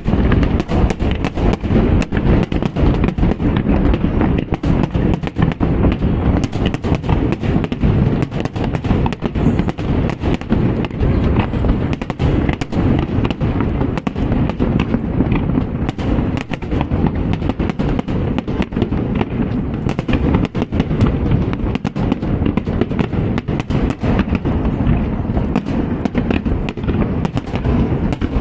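Aerial fireworks going off in a dense, continuous barrage: rapid overlapping bangs and crackles with deep booms underneath, without a pause.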